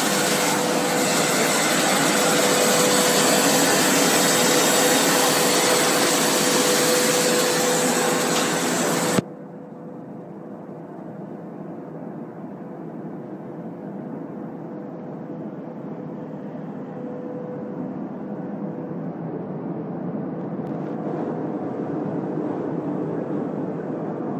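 ABA film blowing machine running: a loud, steady machine noise with a faint steady whine. About nine seconds in it drops abruptly to a quieter, duller running noise, which slowly grows louder toward the end.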